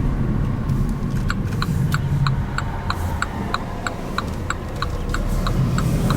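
A car's turn-signal indicator ticking evenly, about three clicks a second, starting about a second in, over the low rumble of the engine and road inside the cabin.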